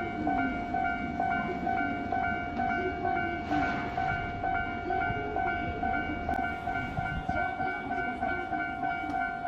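Japanese railway crossing's electronic warning bell ringing, a steady rapid ding-ding repeated evenly: the crossing is closed for an approaching train.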